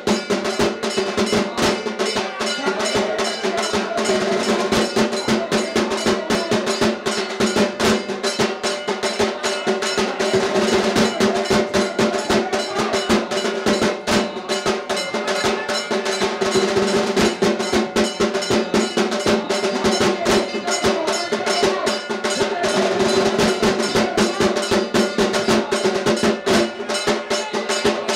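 Fast, continuous drumming like a drum roll, over a steady held low tone.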